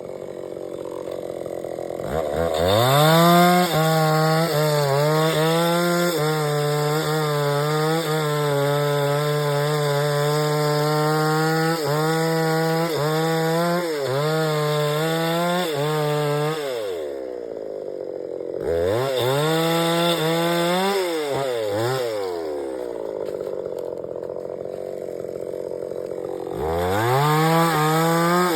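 A gasoline 5900 two-stroke chainsaw revving high while cutting palm wood, its pitch dipping again and again as the chain bites. It revs up about two seconds in, drops back toward idle twice in the middle, and revs up again near the end.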